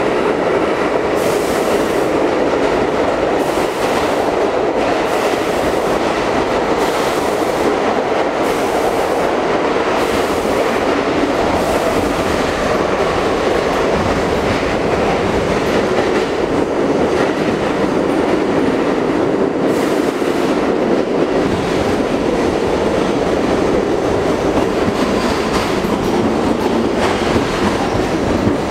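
An R42 subway car running through a tunnel, heard from inside the car: a steady rumble of wheels and running gear, with sharp clacks of the wheels over rail joints about once a second for the first dozen seconds, and fewer after that.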